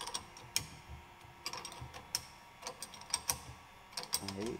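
Wrench clicking and clinking on the bolts of a bearing puller as it is snugged down around a crankshaft main bearing in a two-stroke crankcase: about a dozen sharp metallic clicks at an uneven pace.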